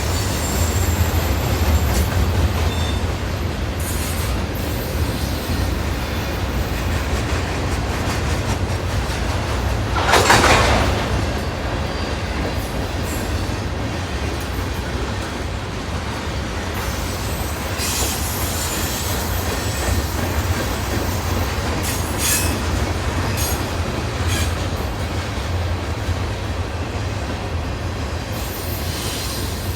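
Freight train cars rolling past with a steady low rumble, with wheel squeal and clatter from the cars. There is one louder rush about ten seconds in and a few short sharp squeals or clanks later on.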